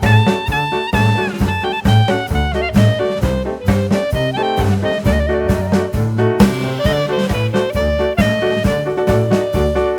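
Background music: an upbeat swing-jazz track with brass and saxophone over a steady drum beat.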